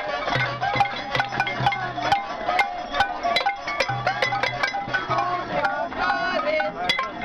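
A crowd banging pots and pans with utensils: a steady clatter of many metallic strikes, several a second, each one ringing.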